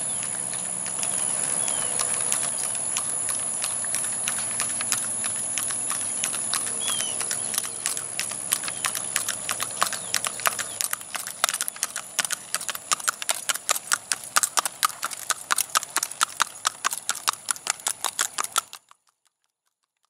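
A gaited mare mule's hooves clip-clopping on a paved road in a quick, even rhythm of her four-beat gait. The hoofbeats are faint at first, grow louder and sharper over the second half, then cut off suddenly near the end.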